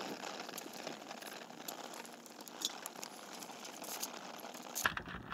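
Aluminium foil crinkling and rustling as hands handle open foil packets on a grill, with scattered small crackles and clicks.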